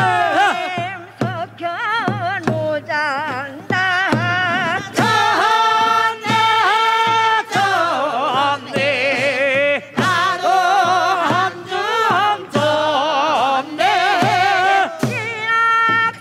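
Korean farmers' work song (nongyo) sung with a strong, wavering vibrato over regular drum strokes, in phrases with brief breaths between them.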